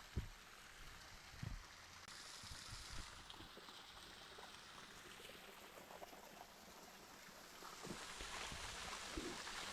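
Faint running water of a spring-fed stream, getting louder near the end, with a few dull low knocks in the first few seconds.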